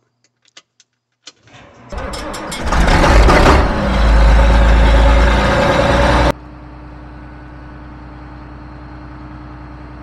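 A few clicks, then an engine cranks and starts about two seconds in and runs loudly. About six seconds in it drops suddenly to a quieter, steady running sound.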